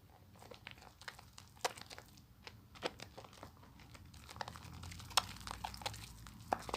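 A bar of soap being lathered by hand: soft, irregular crackles and small wet clicks of the foam.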